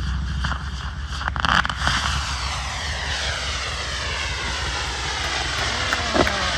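A steady engine drone whose pitch sweeps slowly downward, with a few sharp cracks about a second and a half in and another near the end.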